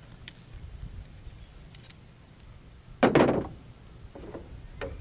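A compound bow being shot: one loud thump of the string and limbs as the arrow is released about three seconds in, followed by a couple of faint clicks near the end.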